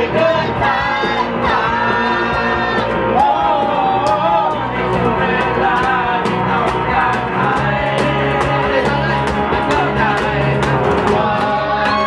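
Live amateur music: several voices singing together to a strummed acoustic guitar, with percussion struck with sticks keeping a steady beat.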